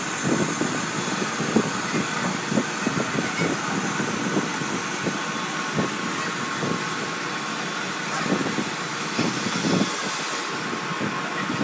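Compressed air hissing steadily through a hose into a tractor tyre mounted on its rim, with the highest part of the hiss dropping away near the end. Irregular knocks and taps from hand work sound over it, several a second.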